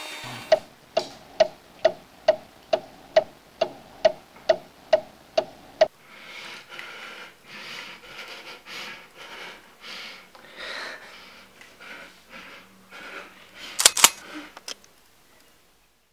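A clock ticking steadily, a little over two ticks a second, for about the first six seconds, then stopping. After it come a woman's uneven, shaky breathing and sniffing, and a sharp double click near the end.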